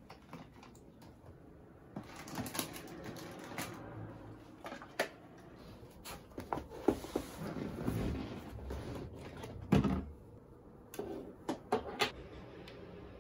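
Household items being handled: a plastic drawer unit rummaged through and cardboard packs shuffled and set down, a run of irregular clicks and knocks with bouts of rustling.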